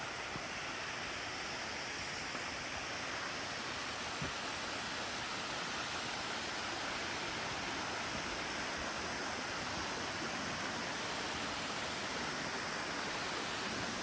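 Steady rushing of water from a waterfall and creek swollen by weeks of rain, a hiss that grows slightly louder. A small tick about four seconds in.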